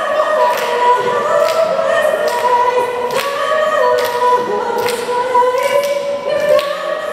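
A group of voices singing a cappella in held, stepping chords, with a sharp beat about once a second keeping time.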